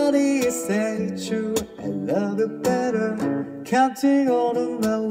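Acoustic guitar strummed in chords while a man sings a held, sliding melody over it.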